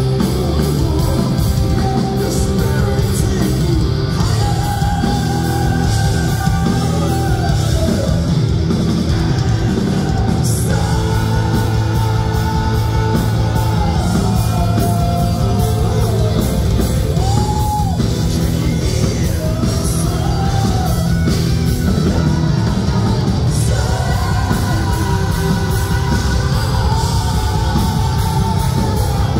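Heavy metal band playing live, with long held sung notes over guitars, bass and drums, echoing in a large hall.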